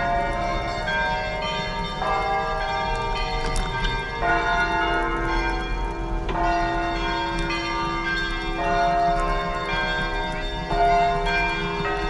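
Russian Orthodox church bells ringing in a continuous peal. Several bells are struck in turn, with a fresh strike every second or so over the lingering ring of the others.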